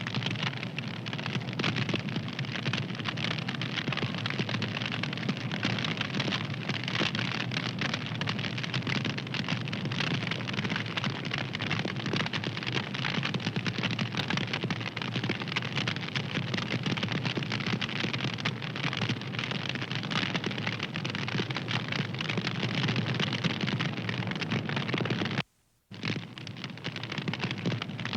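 Wood fire crackling with dense, continuous small pops and a steady hiss. It cuts out for about half a second near the end, then resumes.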